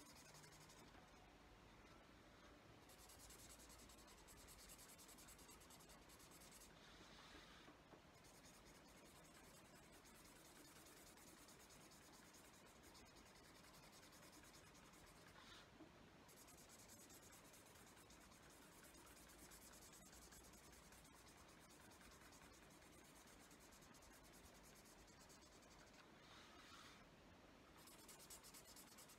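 Faint scratching of a felt-tip pen colouring in on paper, going on in long stretches of strokes with a few brief pauses.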